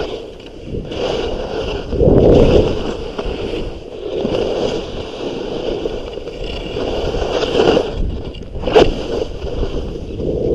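Skis scraping and sliding over snow in a run of turns, the hiss swelling and fading every two seconds or so, with one sharp click near the end.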